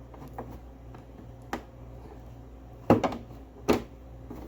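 Plastic cowling panel on a Kawasaki Ninja 300 knocking and clicking against the bike as its tabs are worked into place: a handful of sharp taps, the loudest two about three and three and a half seconds in, over a steady low hum.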